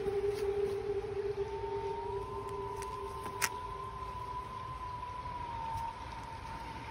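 Sustained eerie tones, one low and one higher that rises slightly and wavers slowly, over a low rumble of outdoor noise, with one sharp click in the middle.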